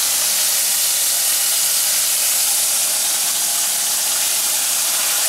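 Steady sizzling of cube steak browning in hot oil in a skillet, an even hiss.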